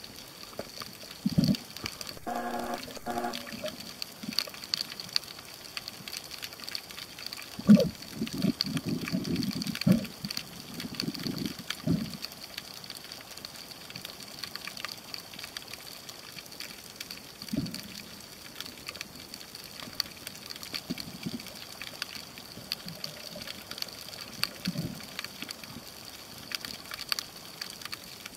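Water sloshing and gurgling against an underwater camera in irregular surges, heaviest from about eight to twelve seconds in, over a steady high hiss with faint clicking. A short buzzing tone sounds about two seconds in.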